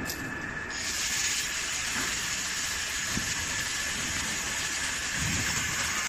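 Steady hissing workshop background noise that gets louder about a second in, with a thin steady high whine running under it.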